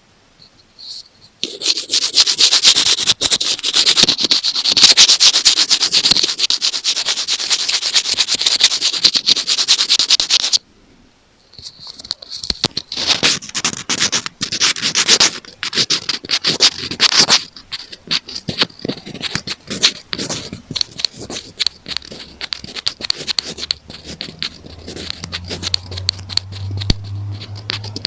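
Close-miked scratching and rubbing on an earphone's microphone, ear-cleaning style. It starts about a second and a half in and runs as dense rapid scraping, stops for about a second around the ten-second mark, then comes back more broken, with many sharp clicks and taps.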